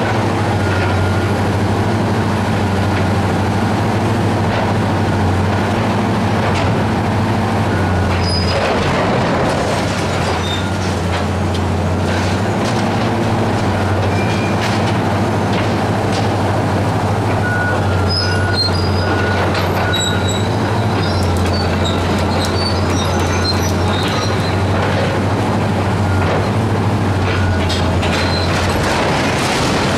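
Hydraulic demolition excavator's diesel engine running steadily under load, with short high-pitched metal squeals, creaks and occasional clanks as its attachment works at the steel girders of an overhead bridge crane. The squealing comes more often a little past the middle.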